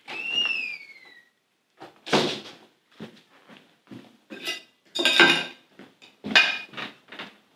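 A door squeaking with a falling pitch as it swings shut on its closer, followed by a run of irregular knocks and clinks.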